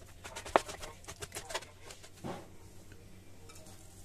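Kitchen knife clicking and tapping against a plastic cutting board as raw fish fillet is sliced, with one sharp knock about half a second in. The cutting stops after about a second and a half; a duller knock follows, then only faint handling.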